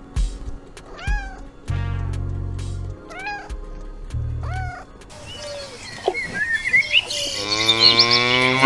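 Kitten mewing several times, short high calls that rise and fall, over a steady low musical tone. After about five seconds a different animal takes over, with a longer rising call near the end.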